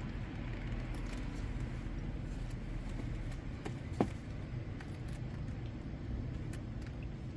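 Steady low outdoor rumble, with a few faint clicks and one sharp tap about four seconds in while a leather stiletto ankle boot is being pulled on.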